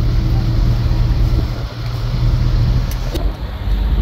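Steady low rumble of a moving road vehicle: engine hum with road and wind noise. Two faint clicks come about three seconds in.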